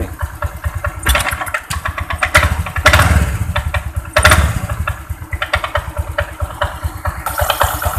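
Honda Vario 125 single-cylinder scooter engine idling, its CVT making a rapid, very loud clattering knock. The owner traces this idle-only knocking to the worn, loose rubber on the front pulley's roller cover.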